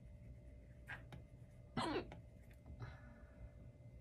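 Faint taps of an Apple Pencil tip on an iPad screen with a paper-feel screen protector, made while writing. A brief louder sound falling in pitch comes about two seconds in.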